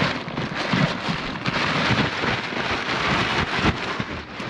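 Heavy rain falling, a dense, steady patter of drops hitting a surface with scattered low thuds.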